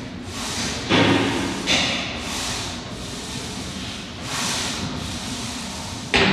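A man breathing hard in and out in time with donkey-kick reps, each breath a short hiss, with a dull thud about a second in.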